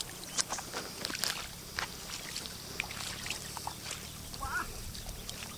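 Feet wading through shallow lake water: irregular small splashes and sloshing.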